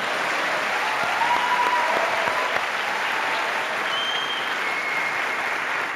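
Live theatre audience applauding steadily, a dense sustained clapping.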